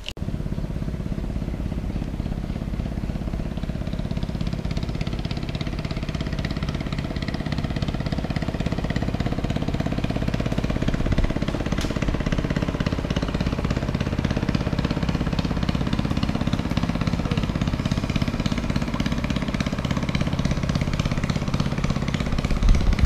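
Small river boat's engine running steadily at an even speed.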